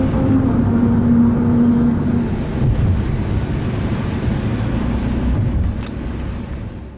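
Car tyres running over a melody road, grooves cut in the asphalt that sound a tune of humming notes stepping in pitch through the rumble of tyre and road noise. The tune fades about two seconds in, leaving the tyre rumble, and the sound fades out at the end.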